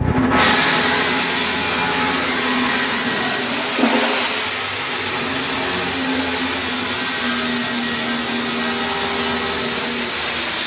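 Maize flour milling machinery running: a loud, steady whirring hiss with a high whine. It cuts in abruptly at the start and holds evenly.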